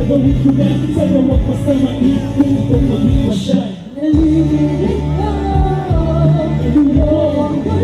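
A song performed live through the stage sound system: a bass-heavy backing beat with a kick drum and a singing voice. The beat drops out briefly a little under four seconds in, then comes back.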